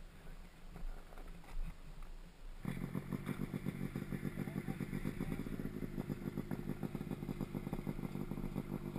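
Yamaha YZ250 two-stroke single-cylinder dirt bike engine coming to life about three seconds in, then running with a rapid, uneven beat.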